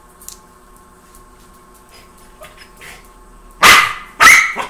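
Small white Spitz puppy barking twice in quick succession, about half a second apart, near the end.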